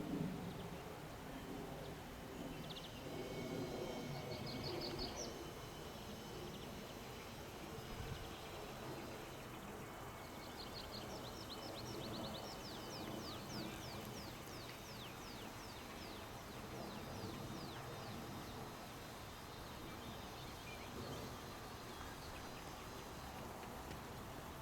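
Nightingale singing over a steady low background rumble: a short rapid trill a few seconds in, then a long run of quickly repeated high whistled strokes through the middle.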